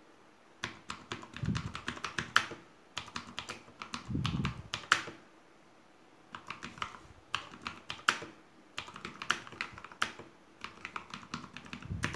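Typing on a Ducky One 2 Mini mechanical keyboard in a wooden case with XDA-profile keycaps: rapid key clicks in bursts of one to two seconds with short pauses between, and a few deeper thuds among the clicks.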